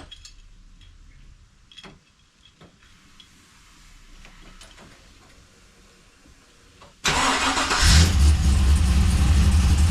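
Holden VX SS Commodore's rebuilt LS1 V8 starting from cold after a week unused: about seven seconds in it catches abruptly, flares briefly, then settles into a steady idle. Before that, only a few faint clicks.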